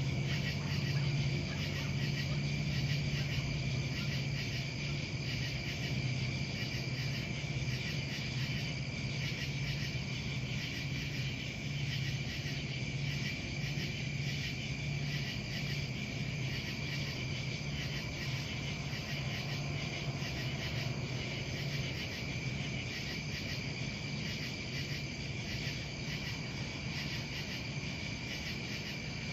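Crickets chirping steadily in a continuous high chorus over a low steady hum that slowly fades.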